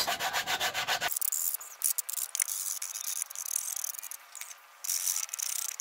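Sandpaper rubbed by hand over the cut edges of a PVC pipe piece to smooth off the sharp edges: a quick run of scratchy strokes for about the first second, then shorter bursts of high scratching.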